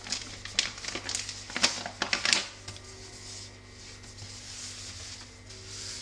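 Thin plastic bag crinkling and crackling as a roll of ready-made filo pastry sheets is slid out of it, then the sheets rustling softly as they are unrolled and smoothed flat. The sharp crackles fill the first two and a half seconds and give way to a quieter, even rustle.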